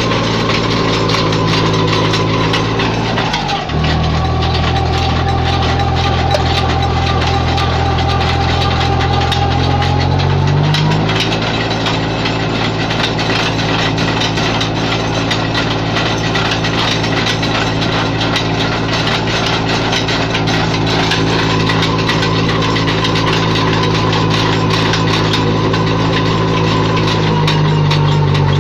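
Tractor engine running steadily to power its mounted earth auger. The engine speed drops sharply about three seconds in, holds lower, and comes back up about eleven seconds in, then shifts once more near the end.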